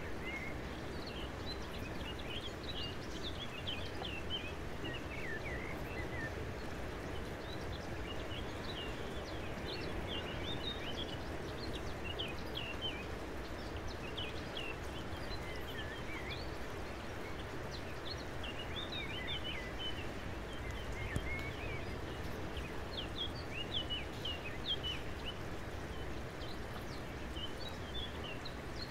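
Birds chirping in short, quick, high twitters, scattered all through, over a steady rushing background noise.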